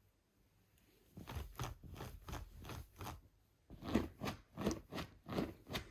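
Replacement backrest of a Brühl Moule sofa's chaise longue making short noises in a series as it is pressed: about seven lighter ones, then after a brief pause about six louder ones. The noise is a defect that the replacement backrest still has.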